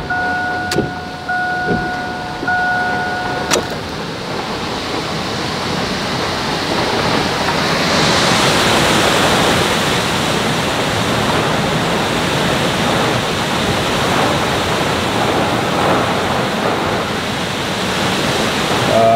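Steady hiss of a heavy rainstorm with wind and surf on the lake, heard from inside a vehicle, growing louder about eight seconds in. At the start a steady electronic tone sounds and stops with a click about three and a half seconds in.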